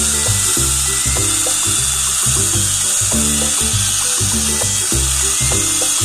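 Background music with a steady bass beat, over a steady high hiss.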